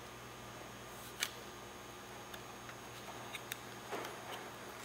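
Faint scattered plastic clicks and ticks as the plastic motor retaining ring is fitted onto the motor mount at the tail of an Estes Firestreak SST model rocket, with a sharper click about a second in.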